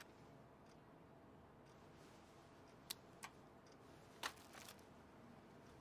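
Near silence: faint room tone with a few soft clicks around the middle.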